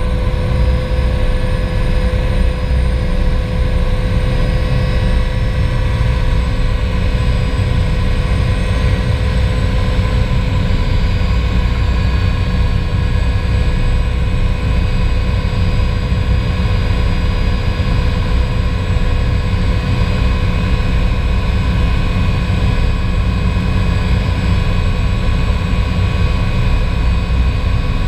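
Sikorsky S-58T's twin PT6T Twin-Pac turboshaft engines running steadily on the ground, heard inside the cockpit. It is a loud low rumble under steady turbine whines, with one high whine easing slightly lower in pitch in the first ten seconds.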